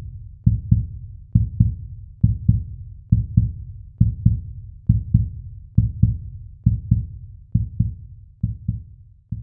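An OPPO A91 ringtone made of a heartbeat sound: low double thumps, lub-dub, repeating a little faster than once a second and slowly fading.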